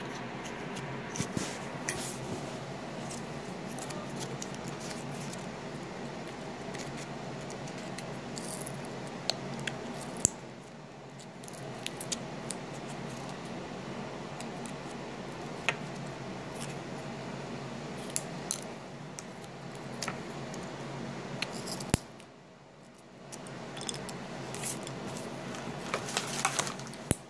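Handling noise on a phone's microphone: rubbing and scattered sharp clicks and taps over a steady background hum, which drops away twice for a moment.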